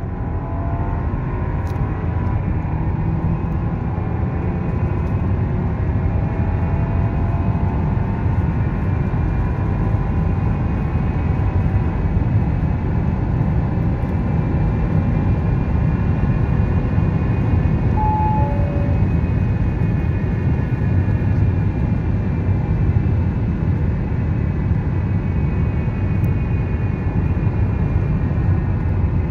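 Audi A4 B9 2.0 TFSI quattro's turbocharged four-cylinder engine under full-throttle kickdown, pulling from about 100 to over 180 km/h, heard from inside the cabin over a heavy, steady rush of wind and tyre noise; the engine note climbs slowly. A short two-note electronic chime sounds about 18 seconds in. Near the end the throttle is off and the car coasts at high speed.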